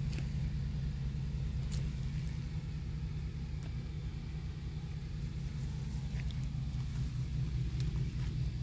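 Steady low rumble, with a few faint clicks over it.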